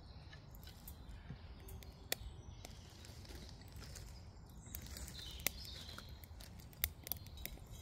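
Faint woodland birdsong with many scattered small sharp clicks, the crackle of a twig fire burning in a small hobo stove under a frying pan.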